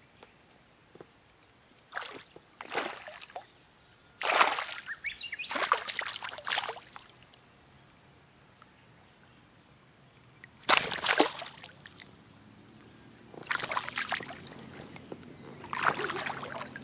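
A hooked largemouth bass thrashing at the surface, throwing up splashes in several separate bursts with quiet stretches between them.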